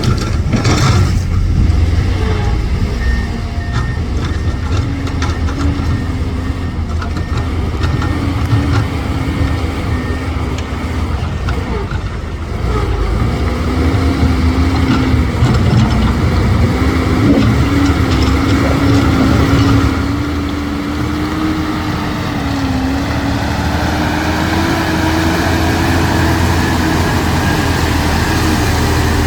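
Heavy diesel engines of earthmoving machines (dump trucks and excavators) running under load, a deep steady rumble with a wavering whine above it. A faint backup alarm beeps at an even rate for several seconds, stopping about a third of the way through.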